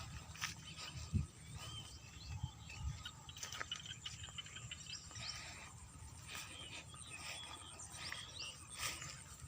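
Frogs and small paddy frogs (khiat) calling together: many short overlapping chirps and clicks. A few low thumps sound about a second in and near three seconds.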